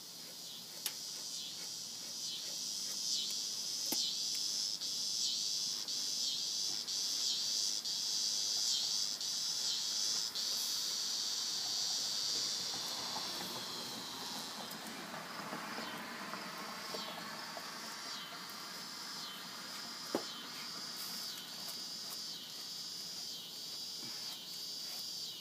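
Outdoor insect chorus: a steady high-pitched chirring with a regular pulse repeating about every half second to second, which eases a little in the second half.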